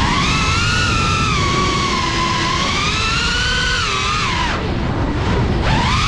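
FPV drone's motors and propellers whining, the pitch rising and falling with the throttle; it sags after about four and a half seconds, then climbs sharply near the end. Wind rumbles on the onboard microphone underneath.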